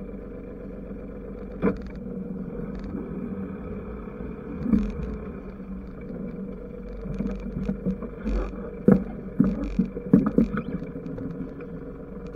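Yacht's engine running steadily while the boat comes alongside another yacht to raft up. Irregular knocks and scrapes of lines and hull contact come in the second half.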